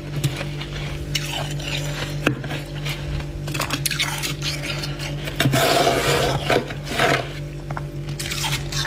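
Freezer frost being scraped and handled, with scattered clicks and scrapes and a louder rough scraping stretch about five and a half seconds in, over a steady low hum.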